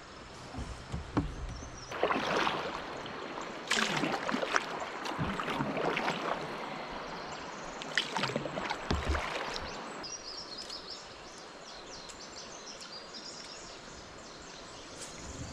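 Double-bladed kayak paddle dipping into river water, with splashes and drips from the strokes, for the first several seconds. The paddling then stops and the kayak glides quietly while a bird chirps in short, repeated notes.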